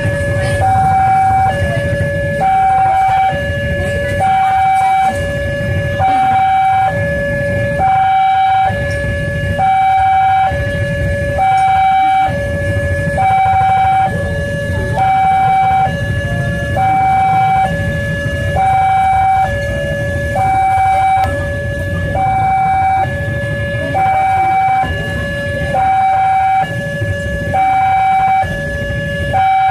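Railway level-crossing warning alarm: an electronic two-tone siren alternating steadily between a higher and a lower tone, each held just under a second.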